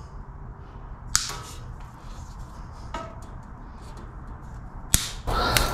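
A few sharp clicks and knocks of tools and metal parts being handled, about a second, three seconds and five seconds in; the middle one gives a short metallic ping.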